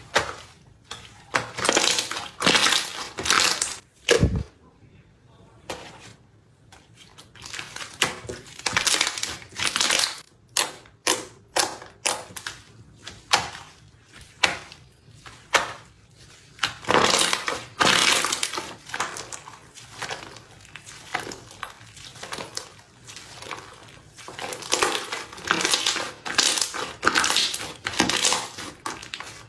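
Crispy slime being pressed and worked in a cup, giving repeated bursts of crackling and crinkling pops in clusters. There is one dull thump about four seconds in, followed by a short lull.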